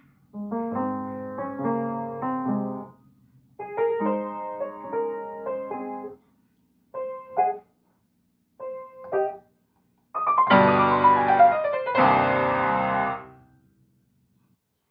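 An upright piano being played: short phrases broken by pauses, then a loud, fast descending run about ten seconds in and closing chords that end the piece and ring away near the end.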